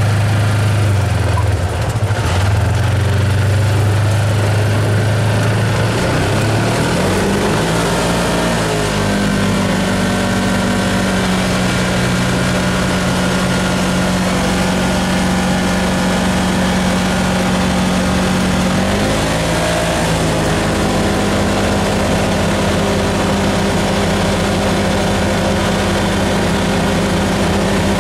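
Freshly rebuilt engine of a Polaris RZR side-by-side driving on the road: its pitch climbs over a few seconds as it pulls away, holds steady at cruise, eases off briefly about two-thirds of the way through, then climbs back and holds again. Steady road noise runs under it.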